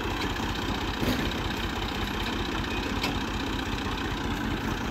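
Massey Ferguson 240 tractor's three-cylinder Perkins diesel engine running steadily at low revs, with an even low chug.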